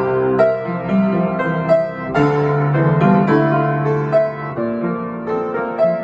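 Upright piano played solo: a steady run of notes and chords over held bass notes.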